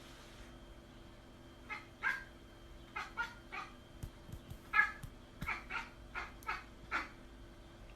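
A cat giving a series of about a dozen short, high calls in quick irregular succession, starting about two seconds in.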